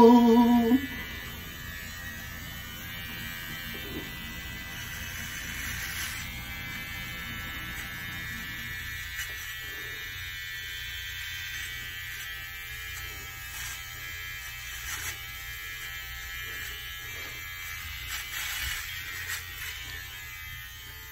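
An electric shaver runs with a steady hum as it is passed over the scalp, shaving the head. The last sung note fades out in about the first second.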